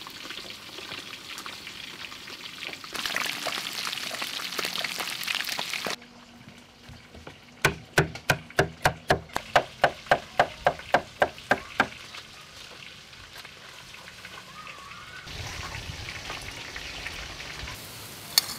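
Hot oil sizzling and crackling, louder from about three seconds in. After a cut, a knife chops pineapple on a wooden cutting board: about fifteen sharp, evenly paced chops, three or four a second. These are the loudest sounds.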